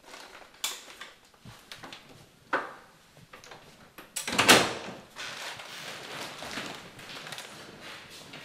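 Old wooden panelled door being unlocked and opened: small clicks and rattles of the lock and handle, then a loud clatter as the door is pulled open about halfway through, followed by steadier rustling.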